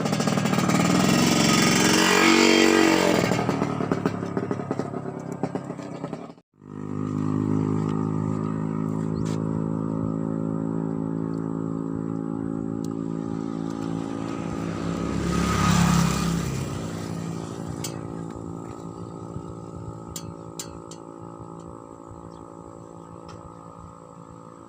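A motor engine running steadily, growing louder and then fading away as if passing, with a second swell near the middle; the sound drops out briefly about six seconds in.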